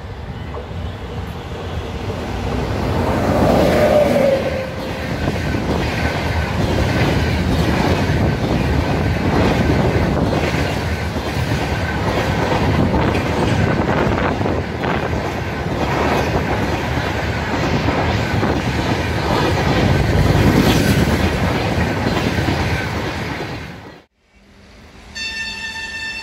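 An electric locomotive-hauled express with LHB coaches passes close at speed: the locomotive goes by about four seconds in, then the long rake of coaches rumbles and clatters steadily over the rail joints. The sound cuts off suddenly near the end, and a fainter, distant horn-like tone follows.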